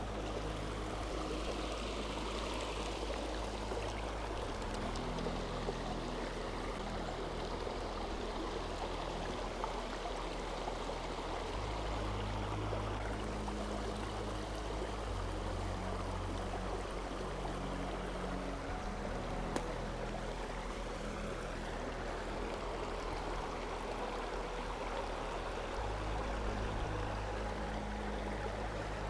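Shallow creek water flowing and trickling steadily over rocks, with a single sharp click about two-thirds of the way through.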